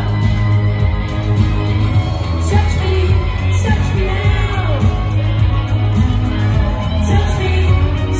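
Live pop music: a woman singing lead into a microphone over loud accompaniment with heavy, steady bass.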